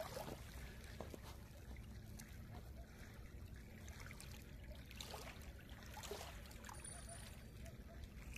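Faint trickling and small splashes of shallow water as a small fish is held in the water by hand to recover before release, over a low steady rumble.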